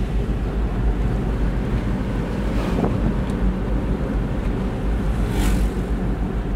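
Steady low road and engine rumble heard from inside the cab of a moving pickup truck, with wind on the microphone and two brief swells of hiss.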